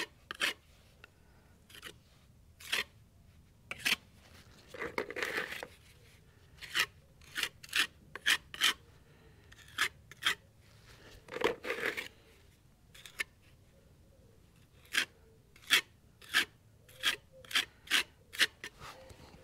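Short scraping strokes of a hand tool working wet masonry filler onto a concrete fence post, coming irregularly, with two longer scrapes about five and eleven seconds in and a quicker run of sharper strokes near the end.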